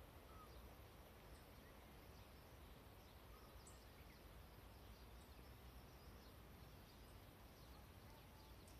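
Near silence: faint outdoor background with a low steady rumble and a few faint, short, high chirps or ticks scattered through it.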